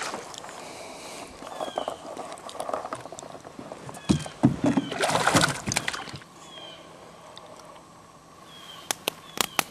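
A hooked smallmouth bass splashing at the water's surface beside a canoe, with a loud burst of splashing about four to six seconds in, a splash at the very start, and a few sharp knocks near the end.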